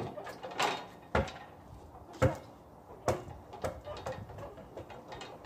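A basketball striking the backboard and rim of a portable hoop, then bouncing on a concrete driveway: a string of separate knocks and thuds about a second apart.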